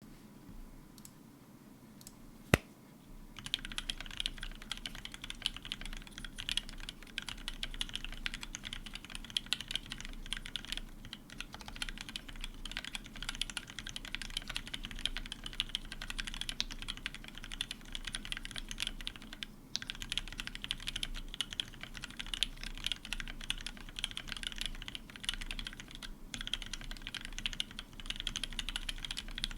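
Fast, continuous typing on a Keycult 1/65 mechanical keyboard with a brass plate, lubed Gateron Ink switches and PBT keycaps, starting about three seconds in. A single sharp click comes just before the typing begins.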